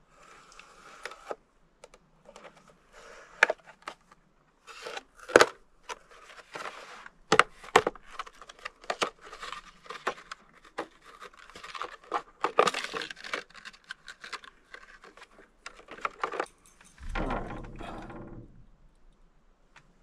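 A fishing lure's hard plastic blister pack being worked open with a knife and handled: irregular crinkling, crackling and sharp plastic clicks, with a longer, lower rustle about three seconds before the end.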